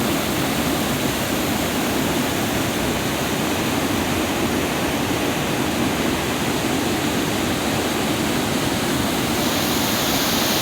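River water rushing, a steady even roar.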